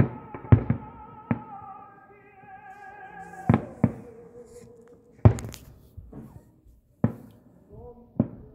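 Fireworks shells bursting in about ten sharp bangs, some in quick pairs. Music with a sustained singing voice with vibrato plays underneath.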